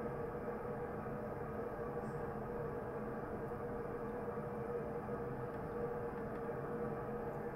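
Steady rush of water flowing into the flooded model tank, with an even hum under it.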